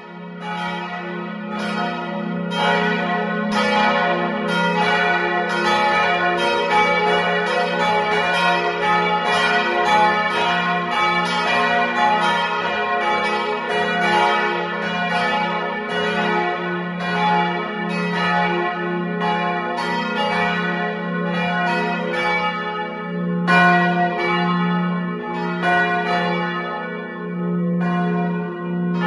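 Church bells pealing: several bells of different pitches strike in quick succession, their ringing overlapping in a continuous peal. It fades in at the start.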